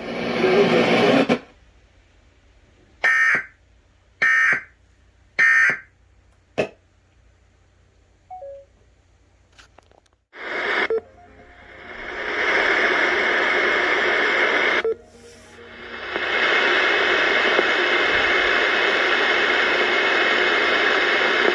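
A synthesized weather-warning voice trails off, then three short EAS digital data bursts sound about a second apart, in the pattern of an end-of-message signal. After a few seconds of near quiet, a steady radio static hiss comes up, drops out briefly and comes back.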